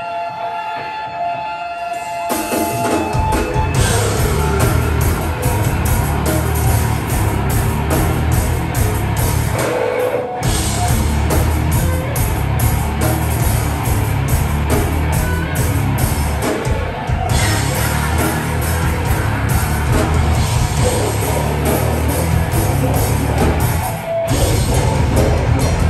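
Metalcore band playing live and loud: held, ringing guitar notes for about two seconds, then the full band of distorted guitars, bass and drum kit comes in, breaking off for an instant twice, about ten seconds in and near the end.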